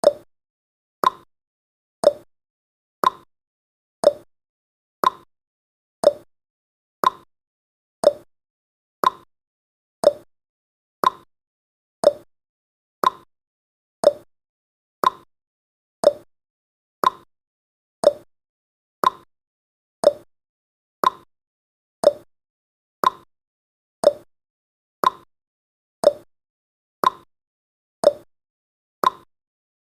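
Countdown timer's clock-tick sound effect: one short, sharp tick every second, perfectly regular, with silence between ticks.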